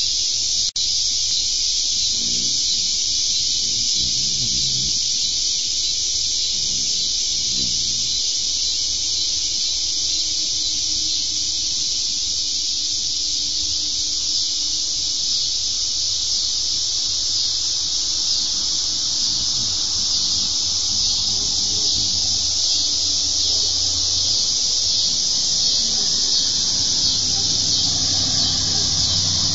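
A steady high-pitched hiss, with a car going by on the street near the end.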